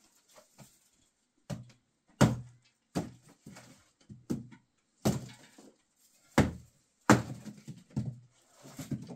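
Sharp chopping knocks of a small hand tool striking dry brushwood fuel, about a dozen irregular blows roughly a second apart, the loudest near the middle and about three-quarters of the way through, each ringing briefly in a small mud-walled room.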